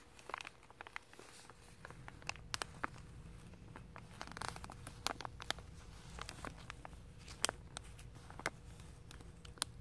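Thin clear plastic sheeting around carpet rolls crinkling in a hand: scattered sharp crackles and ticks, irregular throughout, over a low steady hum.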